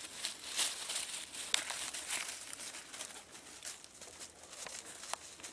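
Dry fallen leaves rustling and crunching in irregular short swishes as people move on the forest floor.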